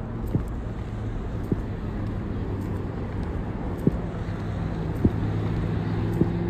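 City street traffic: a steady low rumble of vehicles with an engine hum that grows stronger partway through, and five light knocks a little over a second apart.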